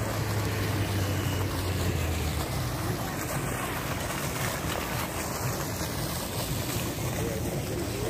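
Steady rush and splash of a fountain jet falling back into a pond. A low steady hum underneath fades out about two and a half seconds in.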